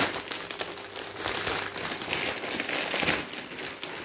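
Plastic mailer envelope crinkling and rustling as it is pulled open and handled, loudest about two to three seconds in.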